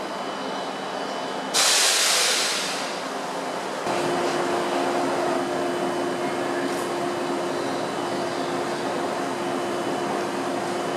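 A JR 115 series electric train standing at a platform, its onboard equipment humming steadily. About one and a half seconds in, a sudden hiss of released compressed air fades away over about a second. From about four seconds in, a steadier hum with one clear tone comes from another stationary 115 series set.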